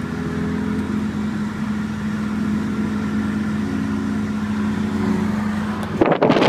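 Car engine and road noise heard from inside the cabin while driving, a steady hum. About six seconds in, a sudden loud rush of wind noise on the microphone cuts in.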